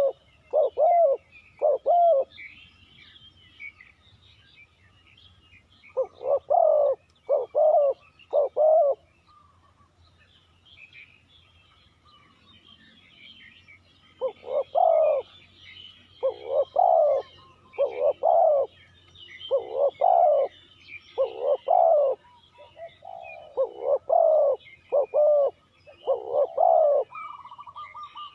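Spotted dove cooing in repeated phrases of several coos with pauses between them, while small birds chirp faintly and continuously in the background.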